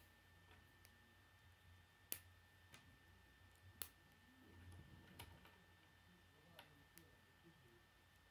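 K'nex plastic rods and connectors clicking as they are handled and snapped together: two sharp clicks about two seconds in and a little before halfway, then a few fainter clicks, with soft handling rustle between them.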